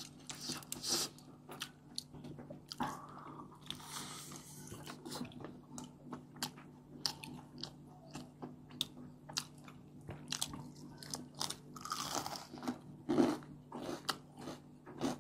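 Close-up eating: mouths biting and chewing crispy fried chicken wings, with many small sharp crunches and wet chewing from several people, over a faint steady low hum.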